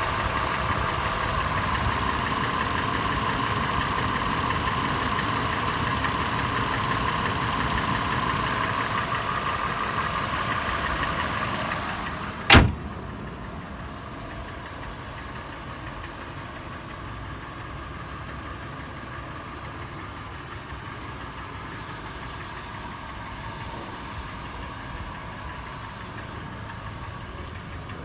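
Toyota FJ engine idling warm with the metallic tapping/knocking that the owner is recording. About halfway through there is one sharp bang, after which the idle sounds quieter and muffled to the end.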